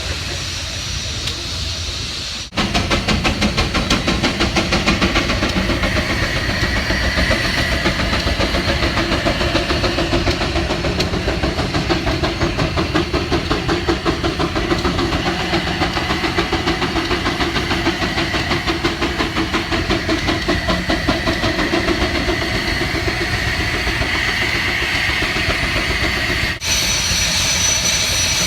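A machine running with a fast, even beat and a hissing edge. The sound changes abruptly about two and a half seconds in and again near the end.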